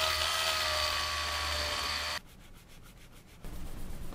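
Small handheld rotary tool running with a steady whine as it grinds a tiny 3D-pen plastic part, stopping abruptly about two seconds in. Near the end the part is rubbed back and forth on sandpaper.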